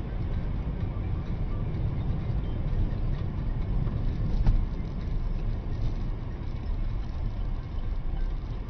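A car driving, with a steady low rumble of engine and road noise. One sharp knock comes about four and a half seconds in.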